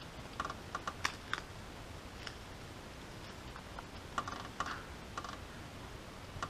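Irregular small clicks and snaps, often in quick pairs, bunched in the first second or so and again a little past the middle, from hands working at a metal outdoor stove while lighting a fire.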